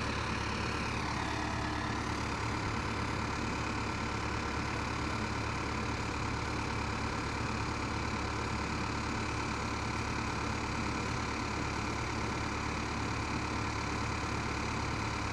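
Komatsu PC71 excavator's diesel engine idling steadily, the machine standing still with its boom raised.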